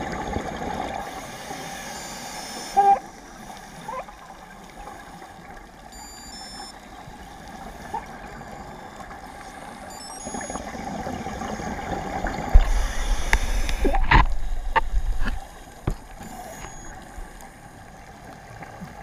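Scuba diver breathing through a regulator underwater: a high hiss of inhalation near the start, then a louder burst of rumbling, gurgling exhaust bubbles with crackles a little past the middle, over a steady underwater hiss.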